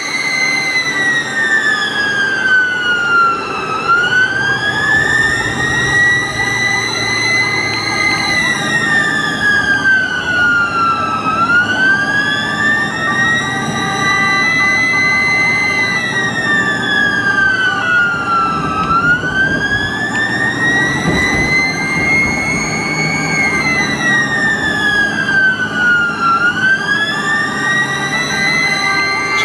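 Ambulance siren sounding a slow wail, its pitch rising and falling about once every seven or eight seconds, over vehicle engine and road noise.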